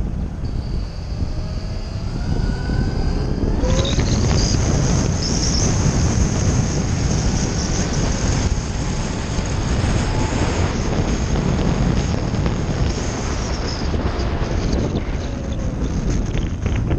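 Dirt bike engine running on the move, its pitch rising as it accelerates in the first few seconds. From about four seconds in, heavy wind noise on the microphone swamps it.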